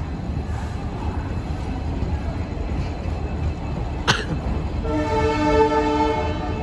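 Passenger train coaches rolling slowly out of the station with a steady low rumble, a single sharp clank about four seconds in. Near the end a train horn sounds once, a steady tone lasting just over a second.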